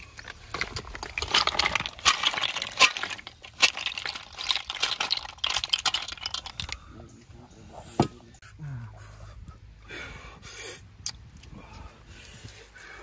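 Roasted snails tipped from a hot wok into a woven bamboo basket, their shells clattering and clinking against each other for about six seconds, then a single sharp click and a few scattered small sounds.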